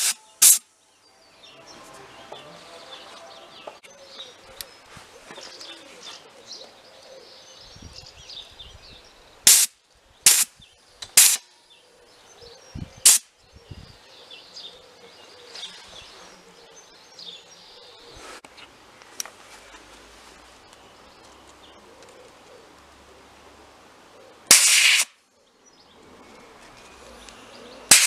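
Several short, sharp blasts of compressed air from an inflator/dust-removal blow gun on an air compressor. The blasts come singly and in a quick cluster of three about ten seconds in, with a longer one of about half a second near the end. Birds chirp faintly between the blasts.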